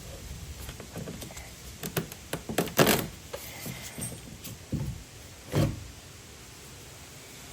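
A few sharp knocks and clatters, the loudest about three seconds in, then a duller thud a little before six seconds.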